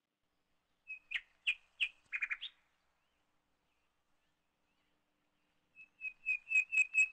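A bird chirping: a few sharp chirps and a short trill, then after a pause a quick run of chirps, about five a second.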